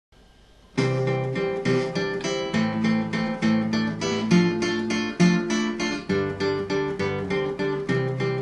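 Acoustic guitar strumming chords as the instrumental introduction to a song. It starts about a second in, after a moment of faint hiss.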